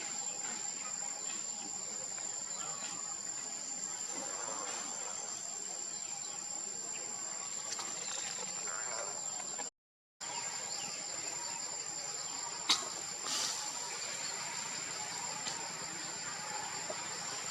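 Steady insect chorus: a constant high whine with a buzzing band beneath it. It drops out for about half a second near the middle, and a sharp click comes a few seconds later.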